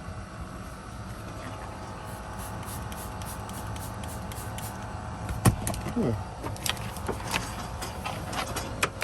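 Steady background hum, then a string of sharp clicks and knocks from about halfway through, the first one the loudest.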